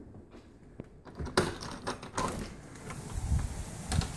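Handling and movement noise from someone walking with a phone camera: a few sharp clicks and knocks, with a low rumble building after about three seconds.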